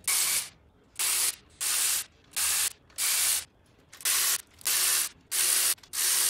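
Ratchet wrench working a bolt out of the engine block in nine short bursts of clicking, each under half a second.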